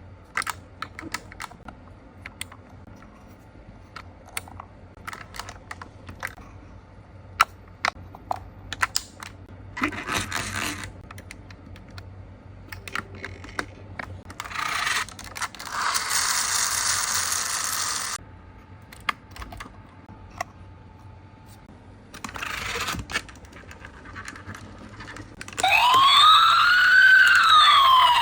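Small plastic and metal clicks and rustles from handling a diecast toy fire truck and its little doors, with a couple of longer scraping or rustling stretches. About 26 s in, a loud electronic fire-truck siren starts, several wailing tones rising and falling.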